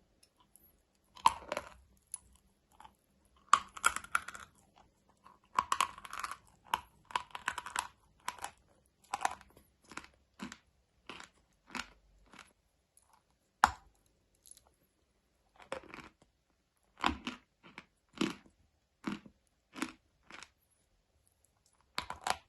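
Close-up crunching of dry edible mineral lumps, the kind of dry chalk and clay eaten in crunch ASMR, as they are bitten and chewed. The crisp crunches are irregular: dense runs in the first several seconds, then sparser single snaps and short groups.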